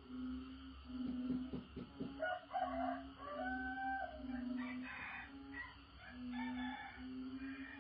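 A bantam rooster crows about two seconds in, over a chorus of frogs giving short, low, steady calls about once a second.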